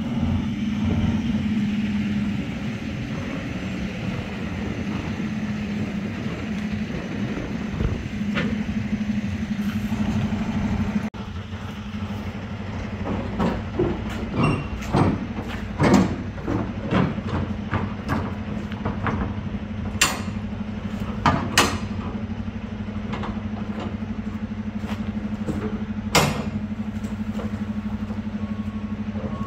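Metal clanks and knocks from a shipping container's rear door latches and locking bars being worked and the doors swung open, with three loud bangs in the second half. Under it runs the steady hum of an idling truck engine.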